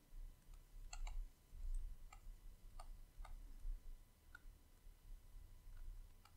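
Stylus pen tapping on a drawing tablet while handwriting, giving faint, irregular clicks a few times a second over a low steady hum.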